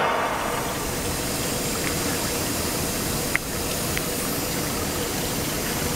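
Steady machinery noise of a wire-mesh factory: an even rushing drone with a faint hum under it. A few faint clicks come through it, the sharpest about three and a half seconds in.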